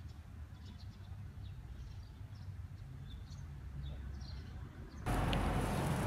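Outdoor background of a steady low rumble with faint, short bird chirps scattered through it. About five seconds in, the background jumps abruptly to a louder, hissier noise.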